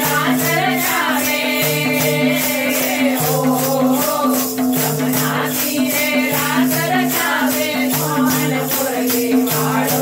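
Women singing a Gujarati devotional ras song together, keeping a quick steady beat on wooden kartals, hand clappers with small metal jingles that clack and jingle on each stroke. Beneath the voices are a steady droning note and a low note that pulses on and off about once a second.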